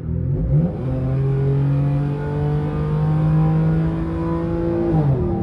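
Vehicle engine under full throttle in a roll from 50 mph. The revs flick up and drop back right at the start as it kicks down, then climb steadily for about four seconds and fall sharply with an upshift near the end.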